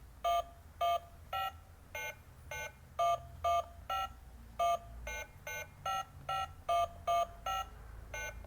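Toy telephone's keypad pressed again and again, each press sounding one short electronic beep note, about two a second at changing pitches, picking out a tune one note per press.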